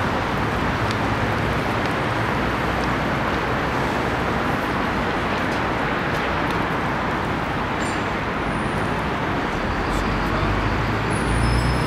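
Steady hum of distant road traffic, even and continuous, with a low rumble underneath. A few faint, thin high tones come in during the second half.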